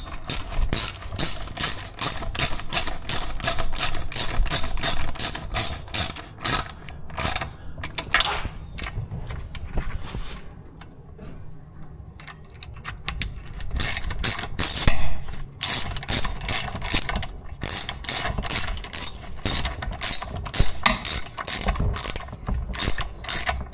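Socket ratchet wrench clicking in quick runs, several clicks a second, as it runs down the water pump housing bolts on a Yamaha 70 hp two-stroke outboard's lower unit. The clicking stops for a few seconds about ten seconds in, then starts again.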